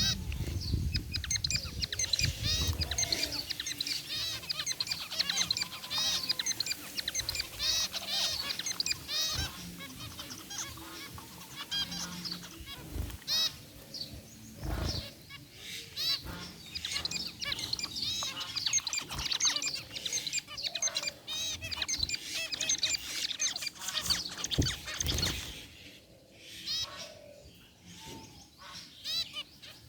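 A flock of zebra finches calling, many short chirps overlapping in quick succession, thinning out a few seconds before the end. A couple of low thumps come in partway through.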